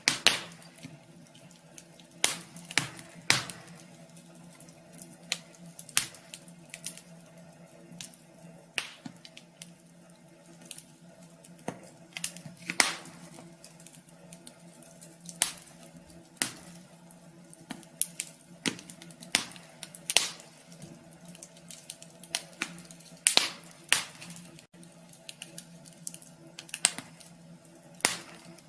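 Wood fire crackling in a wood stove: irregular sharp pops and snaps, a few seconds apart, over a low steady hum.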